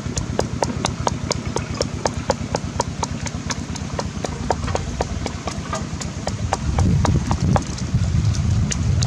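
Wooden pestle pounding salt, chili and herbs in a wooden mortar: a steady run of wooden knocks, about three or four a second. A deeper thudding comes in about seven seconds in.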